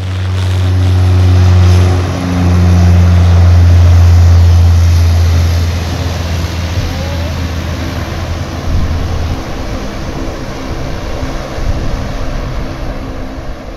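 Aircraft engines running on the runway with a loud, steady low drone and roar. It builds over the first couple of seconds, stays loud for several seconds, then drops away about two-thirds of the way through, leaving a softer rushing noise.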